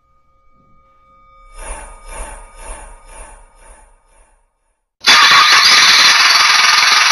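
Loud hiss of video static that starts suddenly about five seconds in and keeps on until past the end. Before it there is a faint rhythmic pulsing, about two beats a second.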